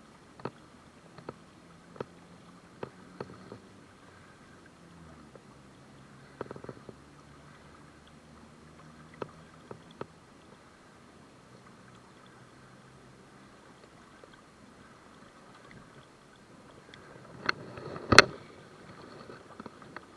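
River current moving past a wading angler, with scattered sharp clicks through the first half and a louder knock near the end.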